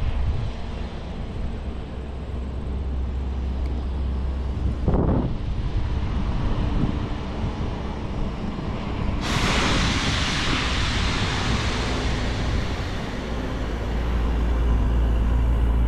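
Steady low rumble of distant vehicle traffic with wind on the microphone; a loud hiss sets in suddenly about nine seconds in.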